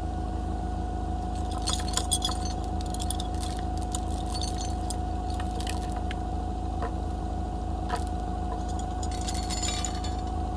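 A steel chain clinks and rattles in irregular bursts as it is wrapped around a wooden fence post, over the steady hum of a Yale forklift's engine idling.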